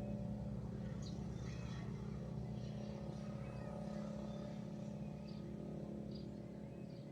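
A motor's steady low hum that slowly fades, with short bird chirps over it.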